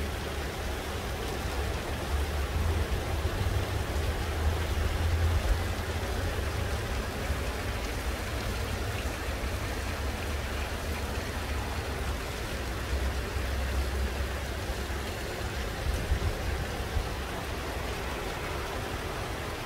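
Heavy rain falling steadily, an even hiss, with a low rumble underneath that swells a few seconds in and again near the middle.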